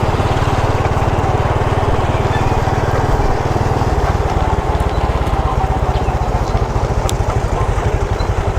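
Motorcycle engine running while riding, a steady fast-pulsing low note that shifts in pitch about three seconds in.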